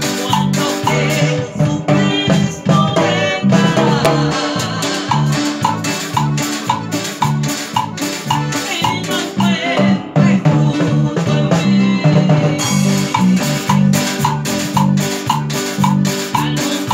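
Live band playing an upbeat praise song in a steady rhythm: drum kit and cymbals, a metal güira scraped with a stick, electric bass, acoustic guitar and accordion.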